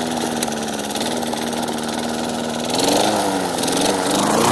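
Tecumseh lawn mower engine running steadily, then revved through a hand-pulled string throttle near the end, its pitch rising and falling in short bursts.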